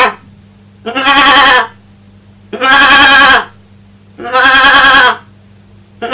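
A man imitating a goat with his voice: a run of loud, quavering bleats, each just under a second long, coming about every second and a half.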